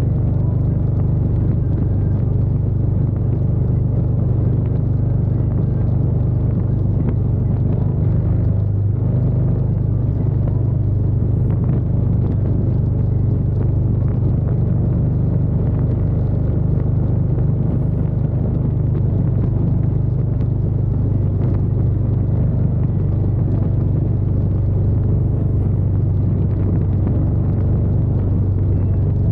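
Cruiser motorcycle engine running steadily at freeway cruising speed, a constant low drone mixed with wind and road noise.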